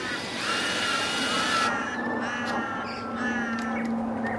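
A bird calls three times, one long call followed by two shorter ones. A cordless drill's motor starts humming steadily about halfway in as it begins driving a self-tapping screw through a steel bracket into lightweight fibre-reinforced concrete.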